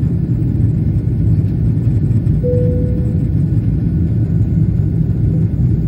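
Steady low rumble of airliner cabin noise from the jet engines and airflow, with a short steady tone about halfway through.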